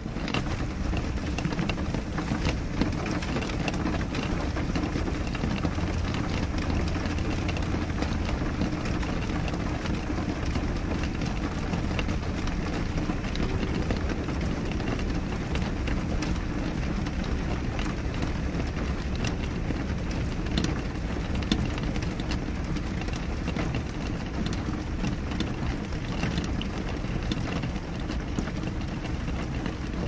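Rain falling steadily on a glass window pane: a constant wash of noise with a low rumble underneath and many small ticks of drops striking the glass.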